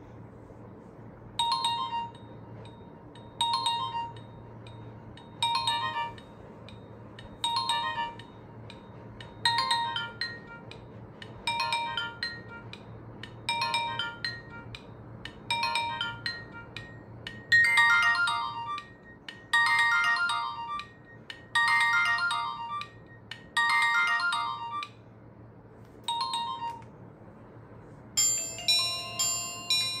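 Nokia 1280 built-in ringtone playing through the phone's small speaker: a short beeping chime phrase repeated about every two seconds, turning louder and fuller a little past halfway. Near the end it stops, and a different, faster-running tone begins.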